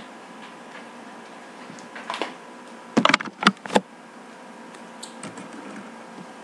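Handling noise: a short rustle about two seconds in, then a quick run of four or five loud knocks and clicks about three seconds in, over a faint steady electrical hum.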